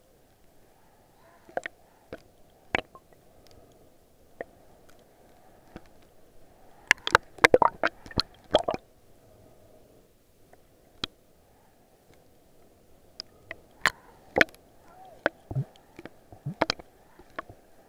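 Underwater sound picked up through an action camera's waterproof housing: a steady muffled wash of water with irregular sharp clicks and knocks, clustered about seven to nine seconds in and again near the end.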